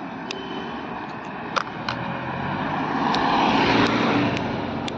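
A motor vehicle passing by: engine and road noise swell to a peak about three to four seconds in, then fade. A few sharp clicks are heard along the way.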